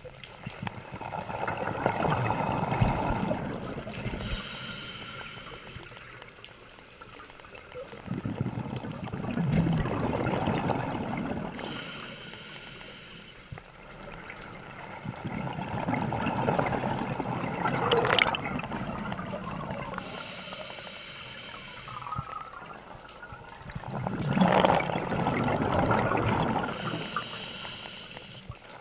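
Scuba diver breathing through a regulator underwater: a short hiss of each inhale, then a long rush of exhaled bubbles, about every eight seconds, four breaths in all.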